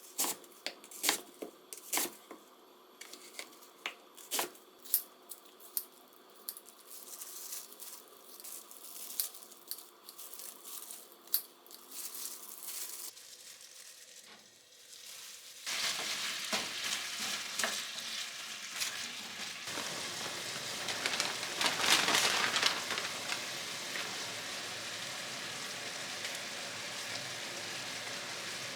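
Scattered sharp clicks and taps of kitchen handling, then, from a little past halfway, the steady sizzle of food frying in a pan, swelling for a few seconds near the three-quarter mark.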